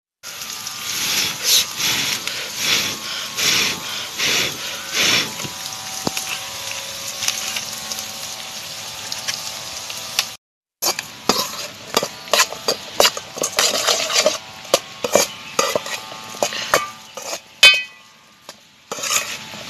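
Metal spoon stirring and scraping chopped onions in a metal pan, with repeated clinks against the pan, over a faint sizzle of the onions sautéing on a wood fire.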